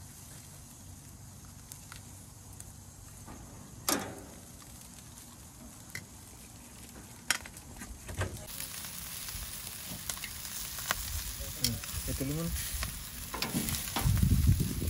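Whole tilapia sizzling on a gas grill, with a few sharp clicks of metal tongs and spatula against the grill. The sizzle gets louder about halfway through, and a low rumble comes in near the end.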